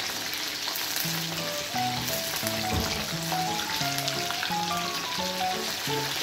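Batter-coated chicken pieces deep-frying in hot oil in a kadai, a steady crackling sizzle, as the pieces are turned with a metal spatula. Background music plays under it.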